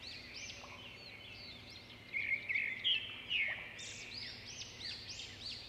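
Birds calling: many short, high chirps that rise and fall, overlapping one another, with a louder run of chattering notes in the middle.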